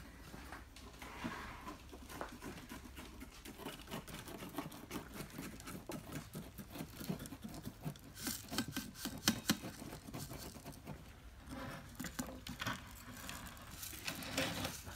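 Granular bonsai soil poured from a metal soil scoop into a shallow bonsai pot, the grains pattering and trickling in irregular runs. The pattering is heavier about eight to ten seconds in and again near the end.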